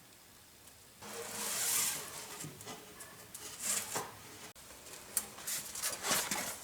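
Irregular rustling and rubbing of electrical wiring and cable sleeving being handled, with a few light clicks. It starts about a second in.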